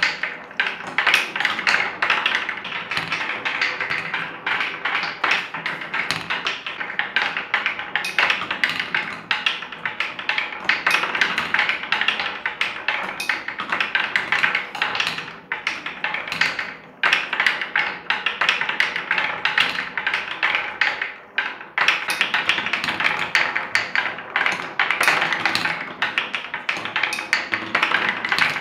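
Big wooden balls rolling down a plywood slope and rattling against wooden deflector blocks, track pieces and each other: a continuous clatter of taps and knocks, broken by a few brief lulls.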